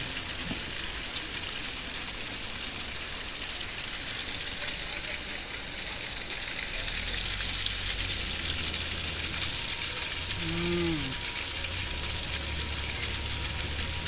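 Steady rush of water from the Hussainabad waterfall and its stream, an even hiss with a low rumble beneath. About ten and a half seconds in, a man gives a short murmur while eating.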